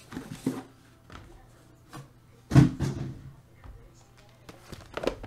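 Cardboard boxes being handled: the flaps of a shipping case and sealed hobby boxes of trading cards are moved and set down on a table. There are a few knocks and rustles, the loudest about two and a half seconds in and another near the end.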